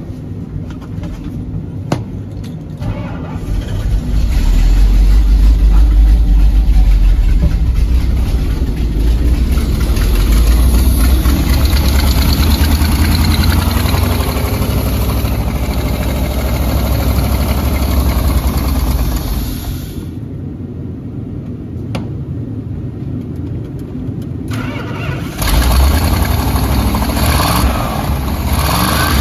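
Old Dodge truck engine being started on starting fluid: it cranks, catches about four seconds in and runs, dies down about twenty seconds in, then fires up and runs again a few seconds before the end.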